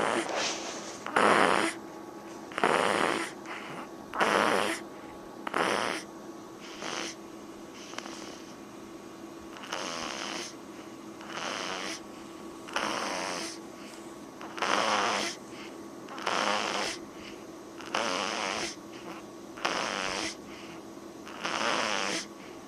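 Snoring: a noisy breath about every one and a half seconds, loudest in the first few seconds and softer after. A faint steady hum sits underneath.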